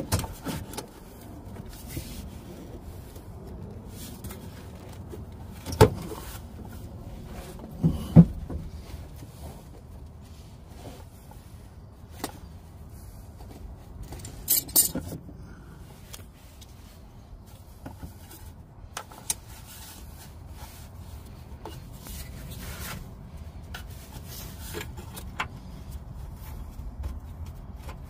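Handling noises of hands working on the EVAP canister and its plastic fittings under a car: scattered knocks, clicks and rubbing, with sharper knocks about six and eight seconds in and a short rattle about fifteen seconds in.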